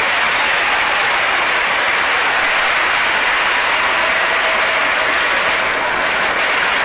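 Large crowd applauding steadily, a dense even clatter of many hands clapping.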